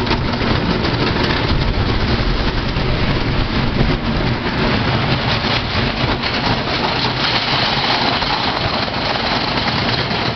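Wooden roller coaster train running on its track and climbing the lift hill: a loud, steady rumble and clatter from the cars on the wooden structure.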